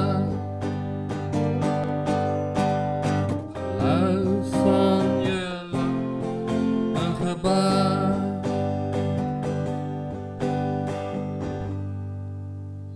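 Song with strummed acoustic guitar, ending on a last chord that rings and fades away over the final few seconds.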